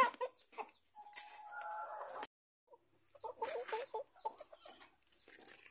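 Pama chickens clucking and calling in short, sharp calls. A longer call breaks off abruptly a little after two seconds in, and the clucking picks up again about a second later.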